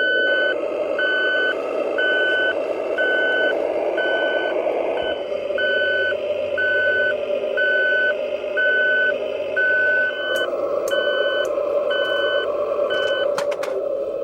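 RC model truck's sound module playing a reversing beeper, a steady high beep about once a second, over a constant engine hum. The beeping stops near the end, followed by a few sharp clicks.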